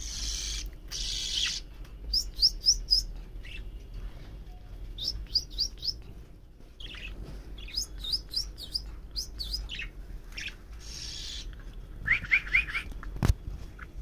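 Young budgerigar chirping: quick runs of about four short, rising high chirps, repeated several times, with a few soft hissy rustles between them. A single sharp click comes about a second before the end.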